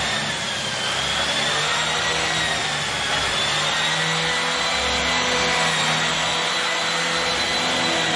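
Vacuum cleaner running steadily on carpet: a rush of air with a high motor whine that wavers slightly in pitch.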